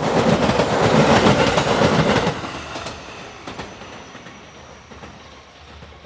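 An electric passenger train passing close by at speed: a loud rush of wheels on the rails for about two seconds, then fading away as it recedes.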